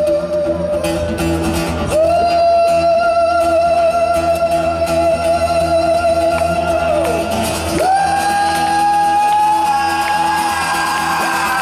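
Live rock performance: a male vocalist holds long sung notes, stepping up to a higher note about two seconds in, again about eight seconds in, and near the end, over acoustic guitar and band through a concert PA.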